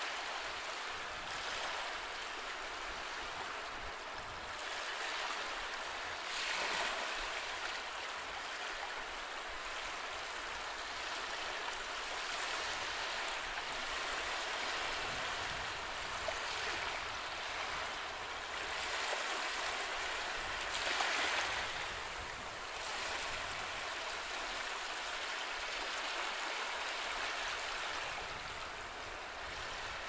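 Small sea waves breaking and washing up a sand beach: a steady hiss of surf that swells now and then, loudest about six and a half seconds in and again around twenty-one seconds.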